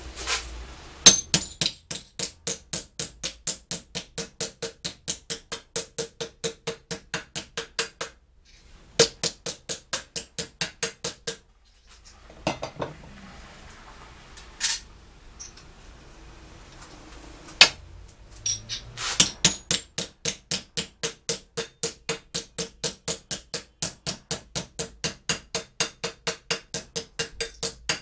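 Rapid hammer blows on a steel piece clamped in a bench vise, about four strikes a second with a metallic ring. They come in three runs, with a pause in the middle broken by two single knocks.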